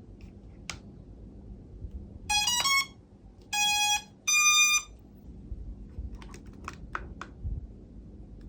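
A hobby drone's power-up tones: a quick run of stepped beeps about two seconds in, then two longer steady beeps. A click comes before them and a few sharp clicks after.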